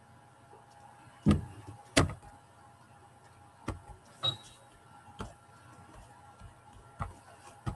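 A handful of scattered sharp knocks and clicks, about seven in all with the strongest two early on, over a faint steady hum.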